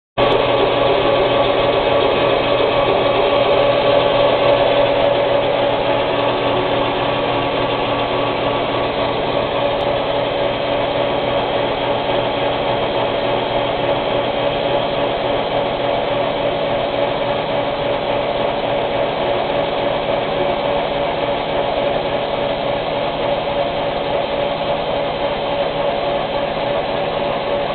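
Milling machine face milling a cast-iron slab: the face mill cuts steadily across the iron with a continuous grinding noise over the steady tone of the spindle running.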